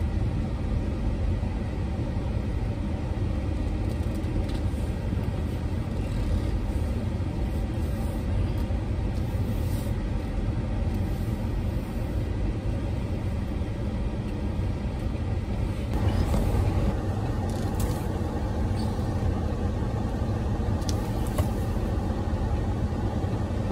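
A car's air-conditioning blowing hard into the cabin: a steady rushing noise with a low rumble under it, turning somewhat brighter about sixteen seconds in.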